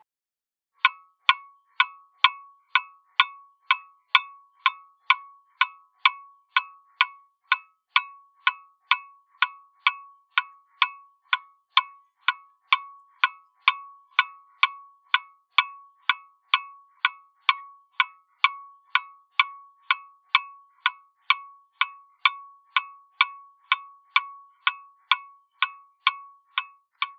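Clock ticking steadily, about two ticks a second, each tick a sharp click with a brief ringing tone.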